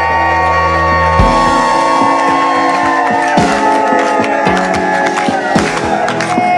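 Background music with long held notes over a few sharp beats.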